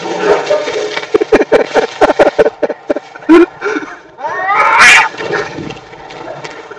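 Two domestic cats fighting: a flurry of short sharp scuffling noises, then one rising screech a little over four seconds in.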